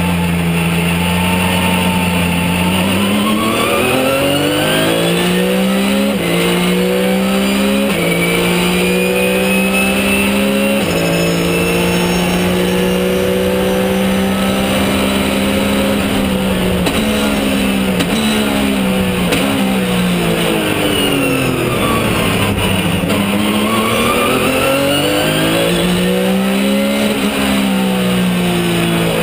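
Porsche 997 GT3 Cup's flat-six engine heard from inside the cockpit at race pace. It pulls hard through several upshifts, the pitch climbing and dropping back at each shift, then holds a steady note. Midway it falls in steps through downshifts, then climbs again with another shift near the end.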